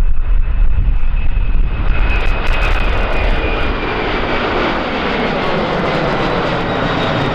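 Airliner's engines at full takeoff power as it climbs away. A deep rumble opens into a wide roar about two seconds in, with a high whine that drops slightly in pitch.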